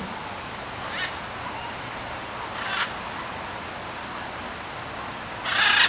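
A small flock of macaws flying overhead, giving harsh squawks: a faint one about a second in, another near three seconds, and the loudest, longest call near the end.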